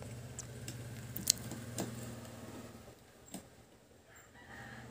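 A few sharp clicks of metal tweezers against an amplifier circuit board, the loudest about a second in, over a low steady hum.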